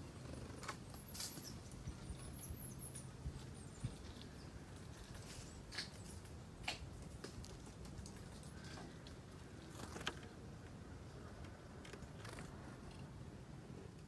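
Quiet backyard ambience with a few scattered soft clicks, one or two seconds apart at most, and a faint, high, wavering bird call about two and a half seconds in.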